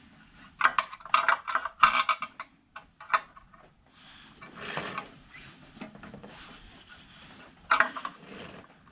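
Metal parts clinking and scraping together in short clusters of sharp, ringing clicks, from working a motorcycle's front axle out of its wheel.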